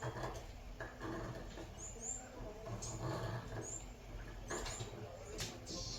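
A steel scriber drawn around the edge of a knife-blade template, scratching the outline into a Damascus steel blank coated with layout fluid. It makes faint scratchy strokes with short high squeaks about once a second.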